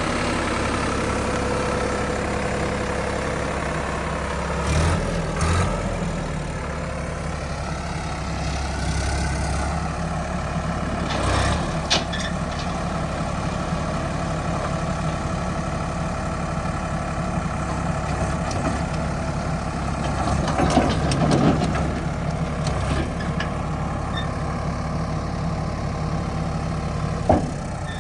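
Diesel engine of a backhoe loader running steadily, with several short clunks and knocks spread through it: a few near five seconds, two near twelve seconds, a cluster a little past twenty seconds and a sharp one near the end.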